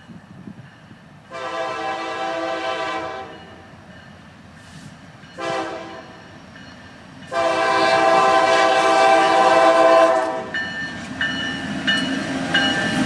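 Diesel freight locomotive's air horn sounding a grade-crossing warning: a long blast, a short one, then a long one. After that the locomotive's engine and wheels grow louder as it reaches the crossing.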